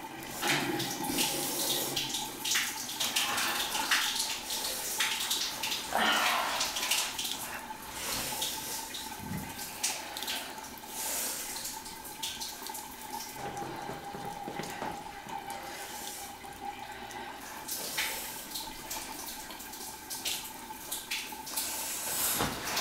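Water running from a leaking bathroom tap: a steady rush with many small splashes.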